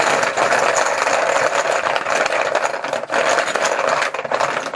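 Poker-style team chips being shaken in a container, a dense, continuous rattling clatter that stops near the end.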